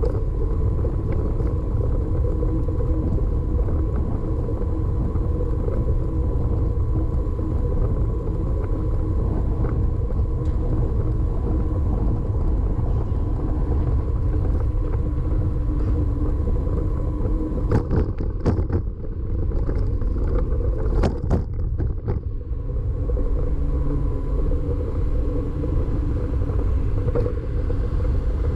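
Steady wind and road rumble on the microphone of a camera riding on a moving bicycle, with a short cluster of knocks and rattles about two-thirds of the way through.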